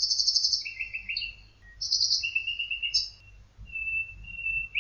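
Birdsong: phrases of rapid, high trilled chirps that repeat with short gaps, mixed with a few thinner, steadier whistled notes.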